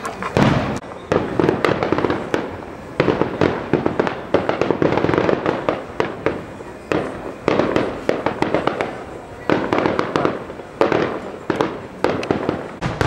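Aerial fireworks going off in quick succession: repeated loud bangs, many close together, with crackling between them.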